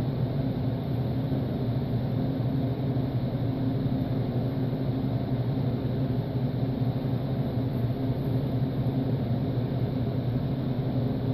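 A steady low mechanical hum, unchanging, with no separate short sounds standing out.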